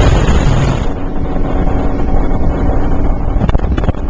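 Speedboat running at high speed, a steady engine drone under heavy wind noise on the microphone.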